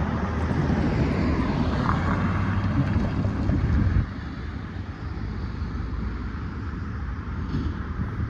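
Union Pacific diesel locomotives of an intermodal freight train passing close by: a heavy engine rumble over steady track and wheel noise. The rumble drops sharply about four seconds in.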